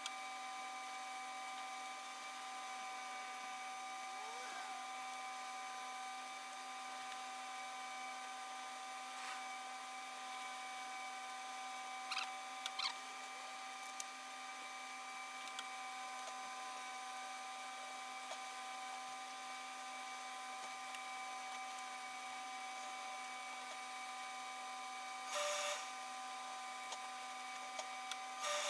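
Steady background hum made of several even, high tones. Over it are a few brief rustles and clicks of coat lining fabric being handled and folded, the loudest rustle a few seconds before the end.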